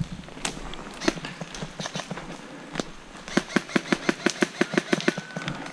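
Footsteps crunching on dry leaf litter and twigs: a few scattered steps, then from about three seconds in a quick, even run of steps, about five a second.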